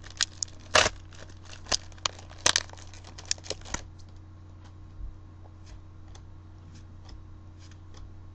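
Foil booster-pack wrapper crinkling and trading cards being handled and flicked: a quick run of sharp crackles and snaps for about the first four seconds, then only occasional faint ticks over a low steady hum.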